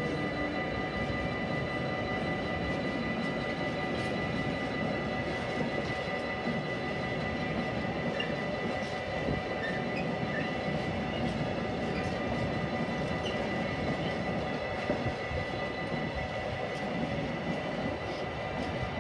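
Empty stake wagons of a freight train rolling past: a steady rumble of wheels on rail, with a steady high-pitched tone running through it.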